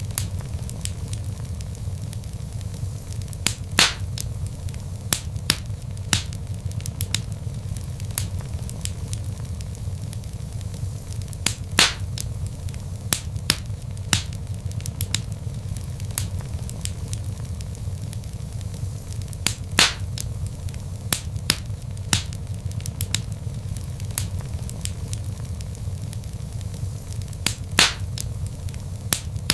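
Log fire crackling in a fireplace: a steady low rumble of burning with constant small crackles and four louder pops, spaced about eight seconds apart.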